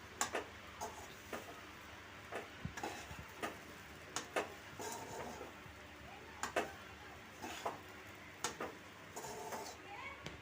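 Metal spoon or ladle knocking and scraping against a cooking pan while the puffed-rice mixture is stirred: irregular light clinks about once or twice a second, a few leaving a short metallic ring.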